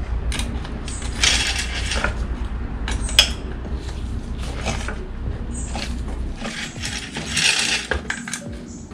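Metal-on-metal clicking, ratcheting and knocking from tools and parts as a bicycle crankset is worked loose and taken off, with two longer rasping scrapes, about a second in and about seven seconds in.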